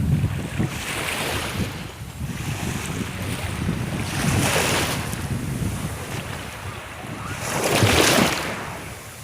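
Sea waves surging and washing in, swelling loudly about three times, roughly every four seconds, with wind buffeting the microphone.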